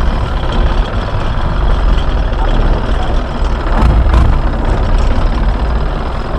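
Fishing boat's engine running with a loud, steady low rumble; a couple of brief knocks about four seconds in.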